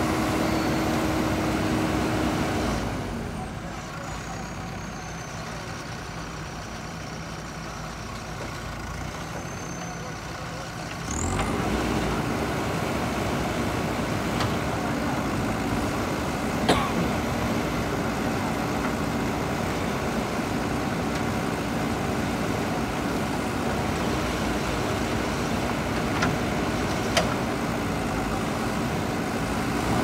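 JCB backhoe loader's diesel engine running steadily, with a constant whine, while it digs with the backhoe. From about three seconds in the sound drops quieter for several seconds, then comes back up. Later there are a few sharp metallic clanks, the loudest about two-thirds of the way through.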